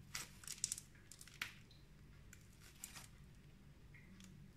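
Faint crinkling and squishing of a plastic piping bag squeezed to pipe cream through a grass tip, in a few short bursts over the first three seconds and two smaller ones near the end.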